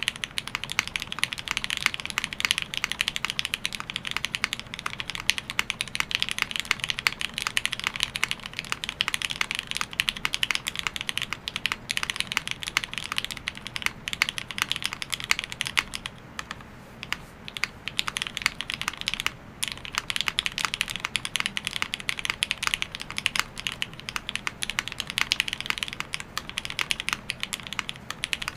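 Fast, continuous typing on a custom mechanical keyboard with Cherry MX Red Hyperglide linear switches, GMK Burgundy keycaps and a polycarbonate plate: a dense run of keystroke clacks with two brief pauses a little past halfway.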